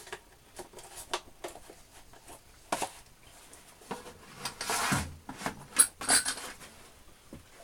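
Metal tools being handled and set down on a hard surface: a string of small clinks and knocks with some scraping, the sharpest knock about six seconds in.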